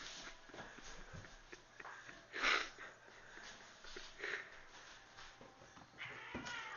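Two domestic cats fighting: hisses, the loudest about two and a half seconds in, and a drawn-out yowl near the end.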